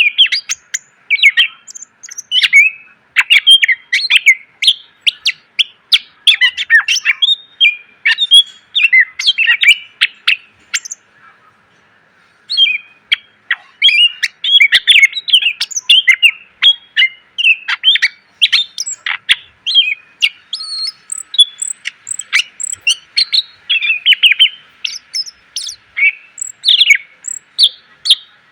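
Green leafbird (cucak ijo) singing a fast, varied song of short sharp chirps, trills and whistles, packed with mimicked phrases of other birds. There is a short break about eleven seconds in.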